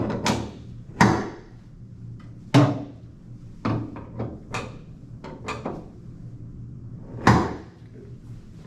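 A series of sharp knocks and clunks, irregularly spaced, with rustling and smaller clicks between: a strap or harness being fitted and tightened on a patient lying on a chiropractic table. The loudest clunks come about a second in, at two and a half seconds and near the end.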